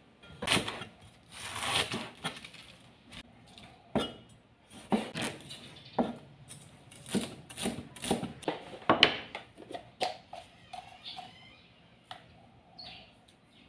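Cleaver chopping green onions on a cutting board: irregular sharp knocks of the blade striking the board, some spaced a second or more apart.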